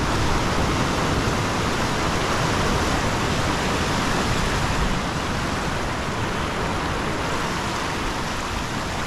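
Ocean surf washing over a low rock shelf: a steady, loud rush of foaming water, easing slightly about halfway through.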